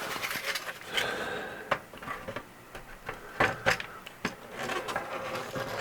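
Scattered light clicks and knocks, about half a dozen, over faint rustling: objects being handled and set down on a workbench.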